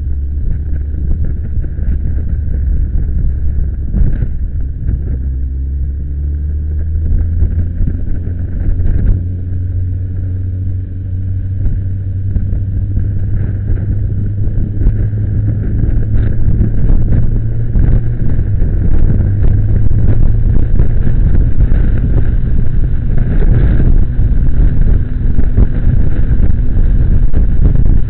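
Motorcycle engine running on the move, heard from a camera mounted on the bike, with wind noise over the microphone. The engine note rises as the bike accelerates about a fifth of the way in, and the whole sound grows louder in the second half as speed builds.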